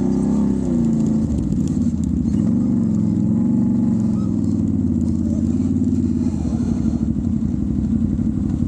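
Can-Am Renegade ATV's V-twin engine running on a trail ride, its pitch rising and falling with the throttle through the first few seconds, then settling steadier.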